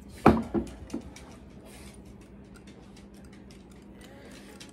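Kitchen handling noise as a small bowl of sauce is mixed. A sharp knock comes about a third of a second in, two lighter knocks follow within the next second, and then a run of faint, irregular clinking and ticking, like a spoon against the bowl.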